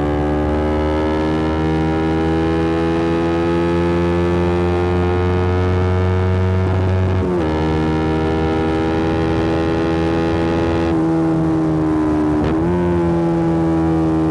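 A Yamaha R125's single-cylinder four-stroke engine running through an aftermarket Black Widow exhaust while riding. The engine note slowly falls as the bike slows, broken twice by a quick step up in pitch, about halfway and near the end, as it shifts down.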